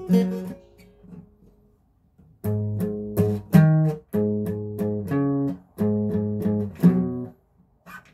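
Guitar played: a few plucked notes at first, then after a short pause, strummed chords in a repeating pattern, with brief breaks between groups.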